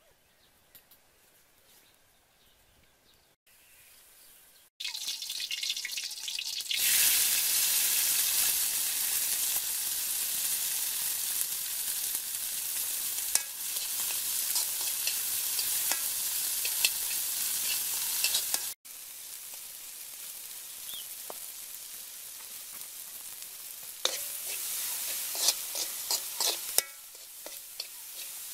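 Red ants and their eggs sizzling as they fry in a metal wok, with a spatula stirring and scraping against the pan. The sizzle comes in about five seconds in and is loudest for the next dozen seconds, then drops lower after a sudden cut and flares again briefly near the end, with scattered clicks from the stirring.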